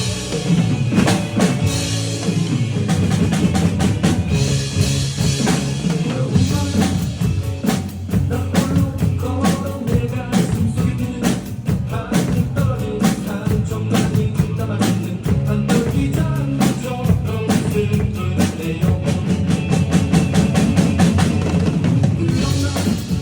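A drum kit played in a steady rhythm, with snare, bass drum and rimshots, over music with sustained low pitched notes.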